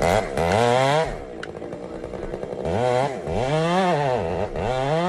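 Chainsaw engine revving up and dropping back about four times, its pitch rising and falling with each rev.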